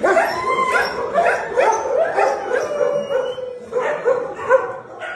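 Dogs barking and howling, with short calls coming several a second and overlapping at different pitches.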